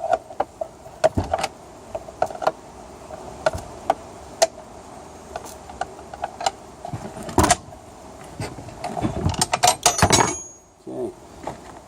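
Irregular metallic clicks and clanks of hand tools at work, with a denser run of louder knocks about nine to ten seconds in.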